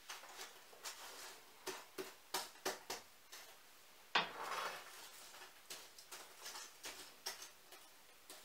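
Irregular light clicks and clinks of a ceramic mug and tableware handled at a table, with one sharper, louder clack about four seconds in followed by a short hiss.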